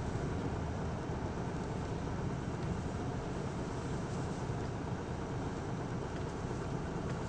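Interior noise of an Isuzu Erga (PKG-LV234L2) diesel city bus: a steady low rumble of the engine heard inside the passenger cabin, with no distinct events.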